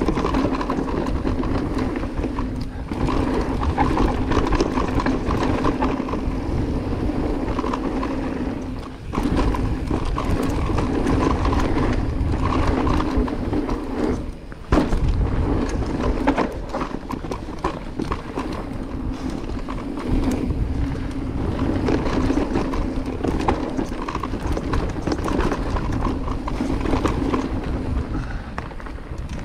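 Cube Stereo Hybrid 140 e-mountain bike ridden down a dirt trail: the electric drive motor's steady hum under pedal assist, over the rumble of tyres and the rattle of the bike on bumps. The hum drops out briefly three times.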